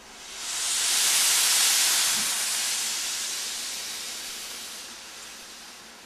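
A loud hiss of escaping steam from a railway locomotive. It swells quickly about half a second in, then fades slowly over several seconds.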